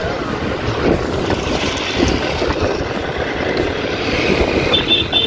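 Wind buffeting the microphone over the running engine of a Suzuki scooter being ridden along, with three quick high beeps near the end.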